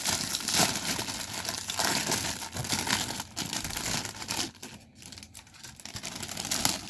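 Thin plastic bag holding model-kit runners crinkling as it is torn open and handled. The crinkling is dense for about the first four and a half seconds, then thins to scattered rustles and clicks, with one louder rustle near the end.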